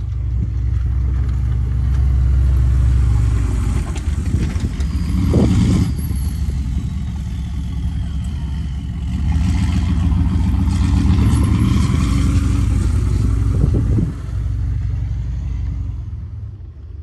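6.5 Detroit turbo-diesel V8 in a Chevy K2500 plow truck, running straight-piped under load while plowing snow, its deep exhaust swelling and easing as the truck drives past and comes back. A turbo whistle rises and falls over it in the middle, and the sound fades near the end.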